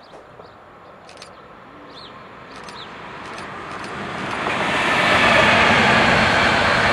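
Electric locomotive hauling a freight train of double-deck car-transporter wagons, approaching and passing close by. Its rumble swells over about four seconds into a steady loud roar of wheels on rails as the wagons go by. A few short bird chirps sound before the train arrives.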